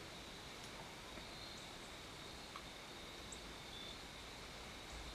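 Quiet field ambience: a steady hiss with a thin, steady high tone and a few faint, short high chirps or ticks.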